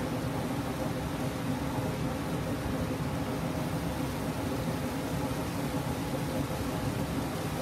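Jigokudani hot-spring geyser spouting a continuous jet of water and steam: a steady rushing noise that does not change.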